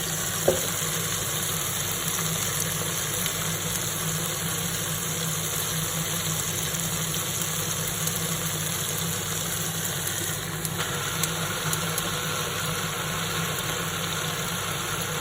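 Fresh spinach cooking in a hot pan of olive oil, garlic and juicy chopped cherry tomato: a steady sizzle over a constant low hum, with a single knock about half a second in.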